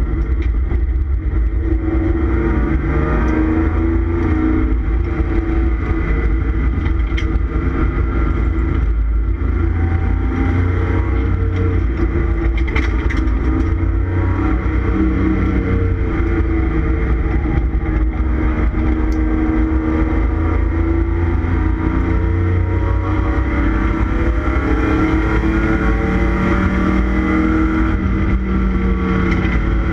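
1989 Ford Taurus SHO's 3.0-litre Yamaha V6 heard from inside the stripped, roll-caged cabin at racing speed, its note repeatedly climbing and dropping as the car accelerates and lifts. A heavy steady rumble of road and wind noise sits beneath it.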